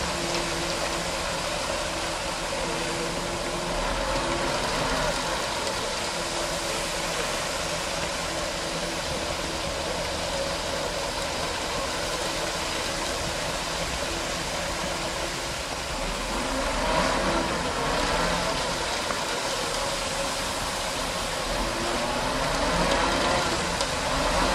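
Concrete mixer truck running steadily, its engine turning the drum as concrete is discharged down the chute.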